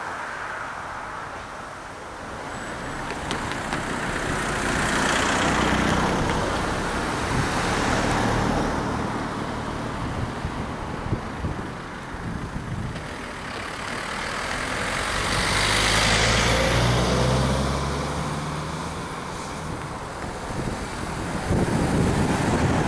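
Cars driving over a road level crossing, their engine and tyre noise swelling and fading as each goes by, with the two biggest passes about six and sixteen seconds in.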